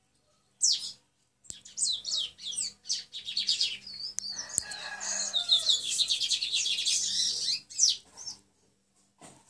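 A lined seedeater (bigodinho) sings its 'treme-terra' song, a songbird warming up its song for the competition season. Quick high chirps and whistled notes build into a fast, continuous trill through the middle and break off near the end.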